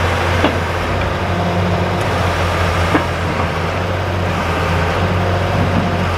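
John Deere 6059T six-cylinder turbo diesel of a Lemco 15000 log loader running steadily as the hydraulic boom and grapple are worked, with two brief knocks about half a second and three seconds in.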